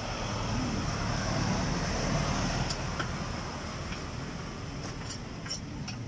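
Steady street traffic rumble as background ambience of an open-air market stall, with a few faint light clicks in the second half.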